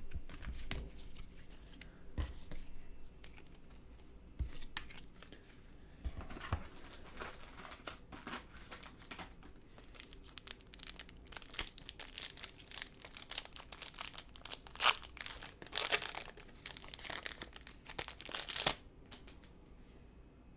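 Foil wrapper of a baseball card pack being torn open and crinkled, a run of irregular crackling and rustling that is loudest and busiest a few seconds before the end.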